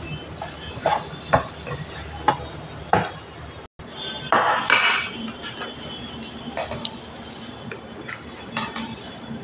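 A spatula scrapes and taps against a nonstick frying pan, with scattered knocks and clinks of the pan against ceramic bowls, as stir-fried fish is turned and served. The loudest scrape comes about four and a half seconds in.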